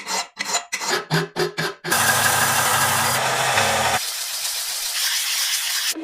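Abrasive tool work on parts of an old coffee grinder being restored. It begins with about seven quick scraping strokes, roughly three a second, then gives way to a continuous rasping noise that turns thinner and higher about four seconds in.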